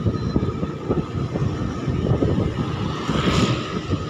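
Motorcycle running along at steady road speed, its engine hum mixed with wind buffeting the microphone. A short hiss swells and fades about three seconds in.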